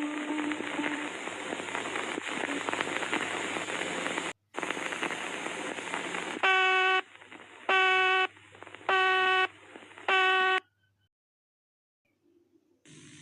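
Mock Emergency Alert System alarm audio: a steady static-like hiss with a low hum, cut briefly about four seconds in. It gives way to four loud, buzzy electronic beeps, each about half a second long and spaced about a second apart, then falls silent.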